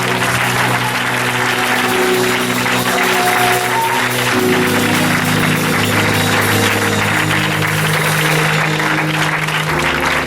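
Congregation clapping and applauding over music of long held chords; the chords change about four seconds in and again near the end.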